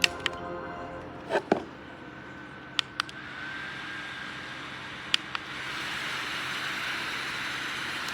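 Small electric neck fan: a few sharp clicks, then a brief gliding motor whine about three seconds in and a steady rush of air that swells about six seconds in and holds.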